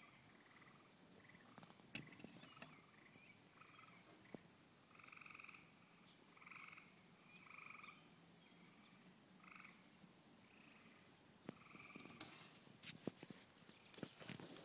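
Faint outdoor insect chorus: a steady, high-pitched chirp repeating about five times a second, with short, lower trills every second or so behind it. A few soft clicks come near the end.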